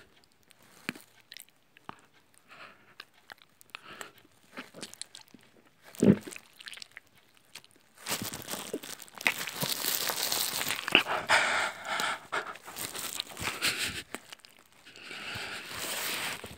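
Wet chewing and mouth-smacking right at the microphone, loud and continuous from about halfway through and again near the end. Before that, only faint scattered clicks and one dull thump.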